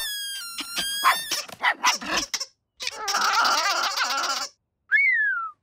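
Cartoon puppy's voice-acted yips and barks in several bursts: a high, wavering cry at the start, choppy yaps, then a longer rough bark-growl. Near the end comes a short yelp that falls in pitch.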